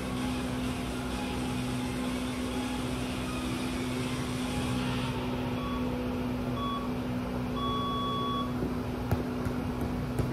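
A steady electrical or mechanical hum, with two short electronic beeps and then one long one about a second apart, in the pattern of a countdown timer, about six to eight seconds in. Then a soccer ball is tapped a couple of times by a foot near the end as dribbling begins.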